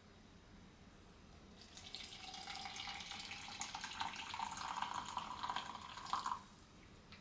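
Water poured from an electric kettle into a steel-lined tumbler, beginning about a second and a half in. The pouring tone rises slightly as the tumbler fills, then stops abruptly near the end.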